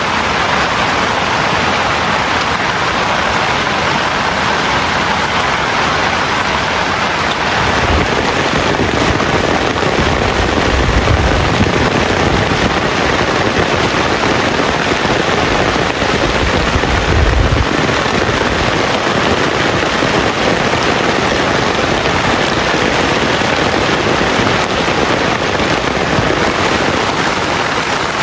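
Heavy rain falling steadily in a dense, even hiss, with a few brief low rumbles near the middle.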